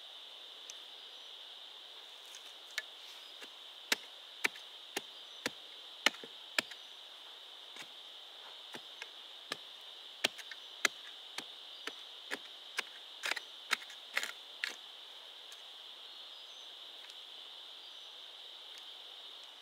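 Steady, high-pitched insect drone, like crickets or cicadas, with a run of about two dozen sharp knocks at irregular intervals from about three seconds in until about fifteen seconds in.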